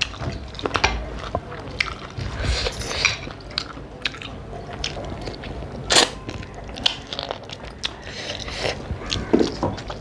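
Close-up eating sounds: chewing, mouth clicks and lip smacks of people eating rice and mutton curry by hand, with a sharper, louder click about six seconds in.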